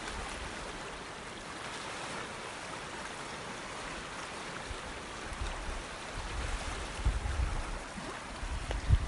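Steady rush of flowing water, like a stream. From about six seconds in, low rumbling gusts come in and grow stronger near the end.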